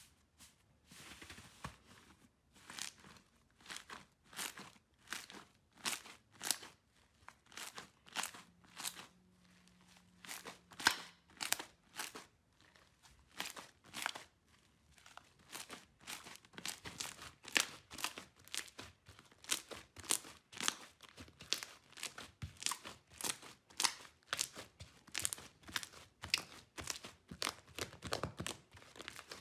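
Hands pressing, squeezing and kneading slime: a run of short crackling pops as air pockets in the slime burst under the fingers, one or two a second at first and coming faster in the second half.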